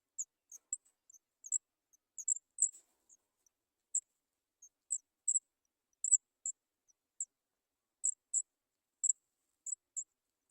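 Sooty chat nestlings giving short, high peeping calls, one or two a second at uneven intervals: chicks begging for food.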